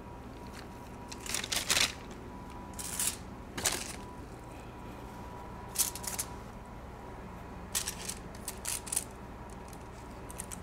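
Cookie dough being worked by hand: scattered short rustling and scraping sounds in small clusters a second or two apart, over a faint steady high whine.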